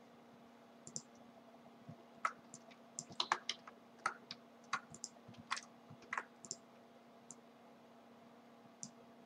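Faint, irregular computer keyboard keystrokes and clicks, about a dozen scattered over the first two-thirds and one more near the end, over a faint steady hum.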